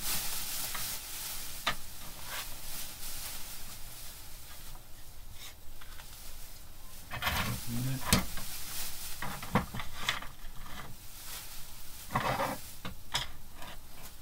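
Card and paper rustling and sliding on a workbench as small dolls house parts are handled, with a few sharp taps and clicks.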